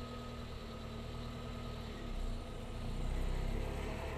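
Small pickup truck's engine running as it drives slowly across grass, its low rumble growing louder from about two seconds in as it comes closer.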